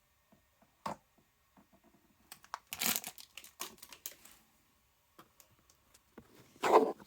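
Plastic or foil packaging crinkling and tearing open by hand, in irregular bursts, the loudest near the end.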